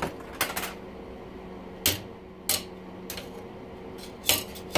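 A hammer striking seized steel spokes in an aluminium bicycle rim: a series of sharp metallic knocks, irregularly spaced, each ringing briefly. A steady low hum runs underneath.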